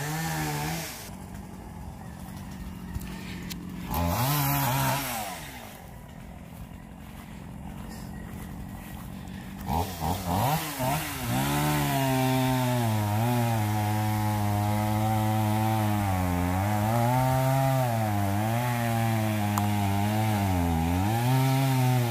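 Chainsaw revving briefly twice, then running continuously from about ten seconds in, its pitch dipping again and again as it bogs down while cutting wood.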